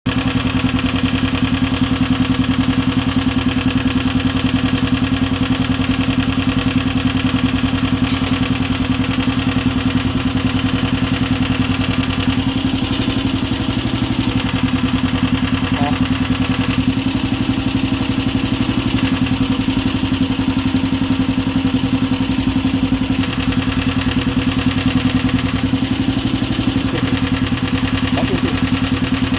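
Honda CG Titan 125's air-cooled single-cylinder four-stroke engine idling steadily, with a noise from the top end of the engine (the cylinder head area) that the owner is showing.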